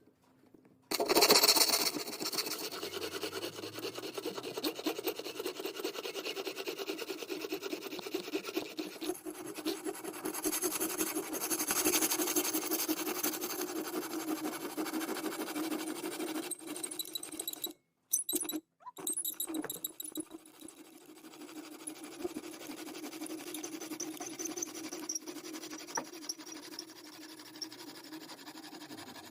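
A hand tool scraping and rasping on wood in quick, continuous strokes, cutting out twice briefly about two-thirds of the way through and growing quieter afterwards.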